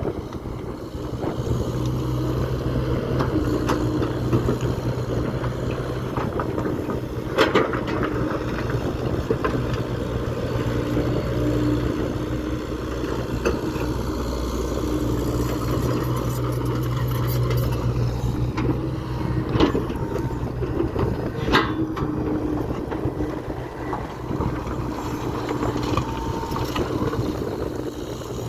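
Kobelco Acera excavator's diesel engine running steadily under load, with a pitched whine that comes and goes as the arm and bucket work. A few sharp clanks of the steel bucket striking broken stone stand out, the loudest about a quarter of the way in and again after two-thirds.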